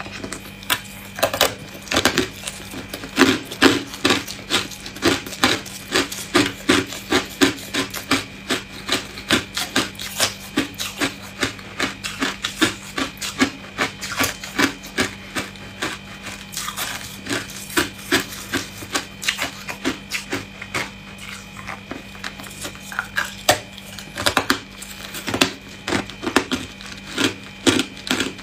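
Hard ice cubes crunched and chewed between the teeth, sharp crunches coming two or three times a second, with a short lighter stretch about three-quarters of the way through.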